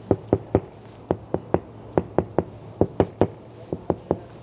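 Knuckles knocking on the side-window glass of a Tesla Model 3, in quick runs of two or three knocks. He is comparing the car's regular glass with its double glass by the sound of the knock.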